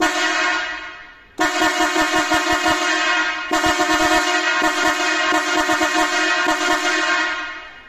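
A rebuilt pair of Mitsuba 'çat çat' electric horns, freshly fitted with new coil windings, contact points and resistors, sounding loudly. A short blast fades away, then about a second and a half in comes one long blast of about six seconds with a harsh, buzzing rasp.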